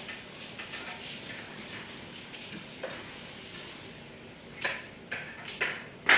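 A stepladder knocking and clattering as someone climbs down it: a few light taps early, then several sharper knocks in the last second and a half, the loudest just before the end.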